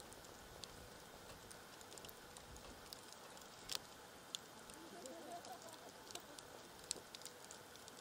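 Faint crackling of a wood campfire: scattered sharp pops over a low hiss, with a few louder pops.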